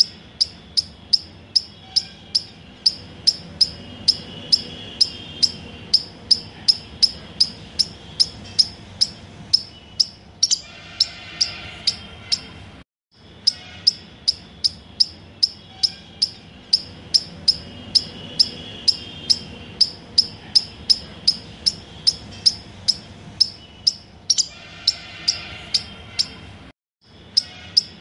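Even, high-pitched chirping, about three chirps a second, with fainter bird calls behind. The sound drops out briefly twice, and the whole pattern repeats about every fourteen seconds: a looped recording.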